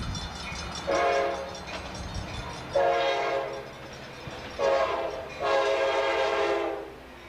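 Air horn of an Amtrak F59PHI diesel locomotive sounding four blasts, the last the longest: the grade-crossing warning. A multi-chime horn over the low rumble of the approaching train.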